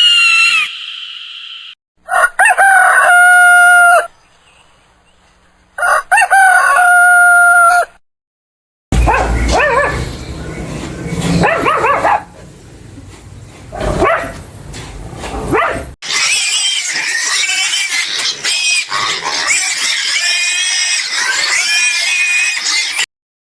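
A rooster crowing twice, each crow about two seconds long with a long held ending, followed by several seconds of other animal calls mixed with noise.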